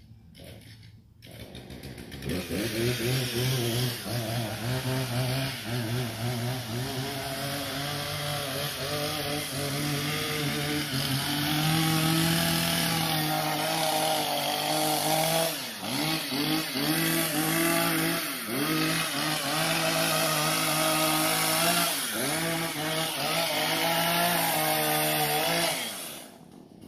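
Craftsman 20V cordless pole saw running and cutting branches. It starts about two seconds in, runs steadily, and its motor pitch dips and recovers several times as the chain bites into wood, before stopping near the end.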